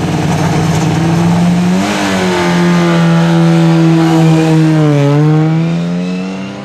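Rally car engine at a stage start, held at high revs and then pulling away. The engine note jumps about two seconds in, dips and climbs again a few seconds later, and gets quieter near the end as the car draws away.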